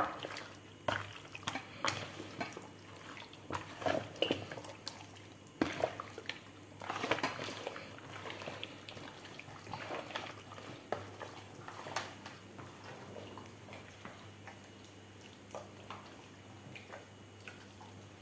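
Hands kneading and turning raw chicken pieces and pork slabs in a wet marinade in a plastic basin: irregular wet squelches and slaps, busiest in the middle and sparser toward the end.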